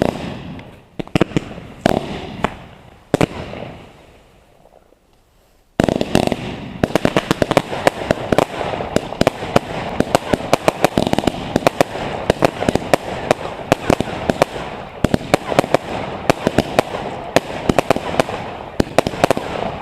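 New Year's fireworks and firecrackers going off: a few separate bangs with fading tails, then, after a brief lull, a sudden dense barrage of many overlapping bangs and crackles.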